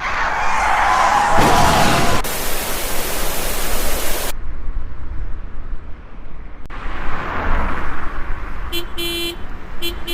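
Steady rushing noise, loudest over the first four seconds and cut off abruptly, then returning; near the end a car horn honks twice in short blasts.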